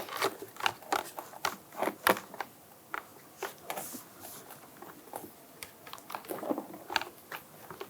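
Irregular light plastic clicks and rattles from a replacement interior door handle being handled and pushed into the plastic door panel while it is lined up for its spring clip.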